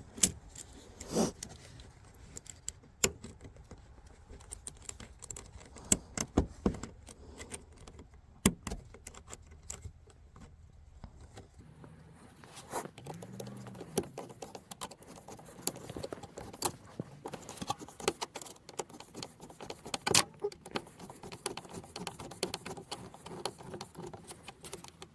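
Hand work on worm-drive hose clamps and tools: irregular sharp metallic clicks and clinks, several a few seconds apart, busier in the second half.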